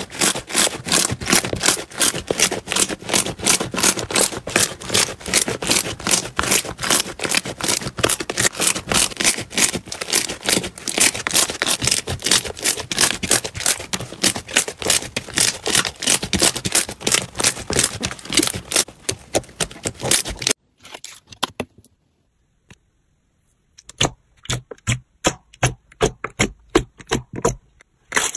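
Hands squeezing, stretching and folding thick foamy slime, making a dense, even run of sharp crackling pops as air pockets burst. About two-thirds of the way through the popping stops for a couple of seconds, then comes back sparser.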